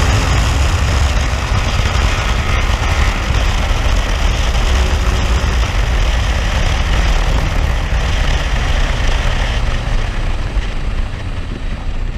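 Motorcycle riding at highway speed: steady wind rush on the microphone over the engine's running note. The rush eases near the end as the bike slows.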